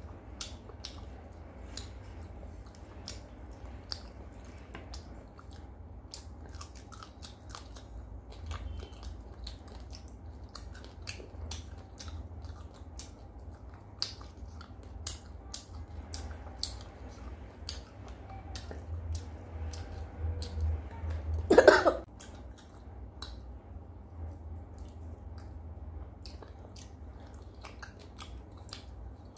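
Close-up eating sounds: repeated wet mouth clicks and smacks from chewing and licking food off the fingers, over a low steady hum, with one louder short sound about two-thirds of the way through.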